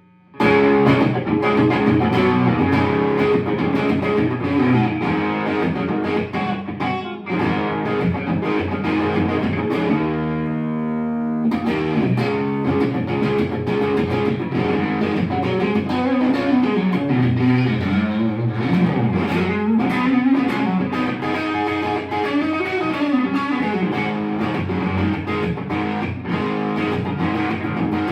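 Custom Stratocaster electric guitar being played: a run of notes and chords that starts right at the beginning, with a held chord left ringing about ten seconds in before the playing picks up again.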